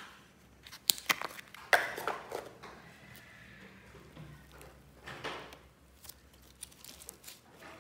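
Slime being squeezed and stretched by hand: a few sharp, sticky clicks and pops about one to two seconds in, then softer squelching.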